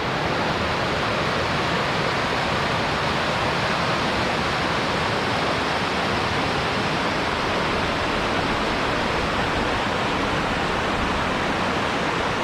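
Creek water rushing, a steady, even sound that does not change.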